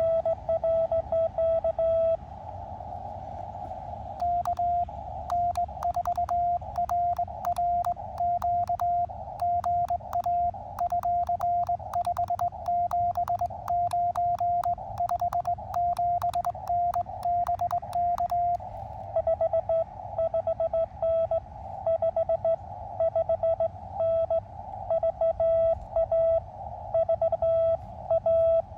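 Morse code (CW) on an Elecraft KX2 transceiver. The radio's sidetone beeps out the operator's own sending on paddles worked as a cootie (sideswiper) key, at the start and again for the last third. Between them the receiver hiss is heard for a couple of seconds, then another station answers in Morse at a slightly higher, cleaner pitch, with sharp clicks through it.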